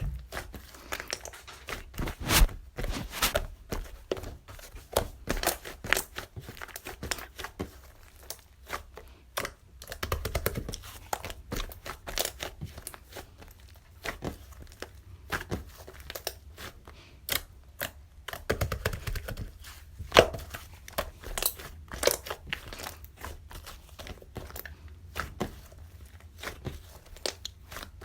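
Close-up crinkling, rustling and tearing of a crinkly material being handled, in irregular crackles throughout.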